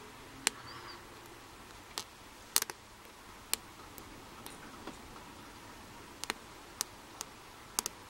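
Hook pick clicking against the pins inside a padlock's pin-tumbler keyway while the core is held under tension: a dozen or so short, sharp metallic ticks at irregular intervals as the pick feels for the binding pin 2.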